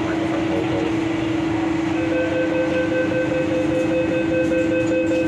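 Door-closing warning beeps on an MTR South Island Line S-Train at the platform: a repeating beep starts about two seconds in and stops around the time the doors shut, over the train's steady hum.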